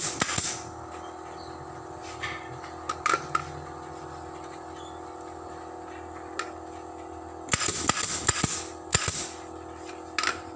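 Pneumatic staple gun firing in short clusters of sharp shots, each with a brief puff of air, over a steady background hum.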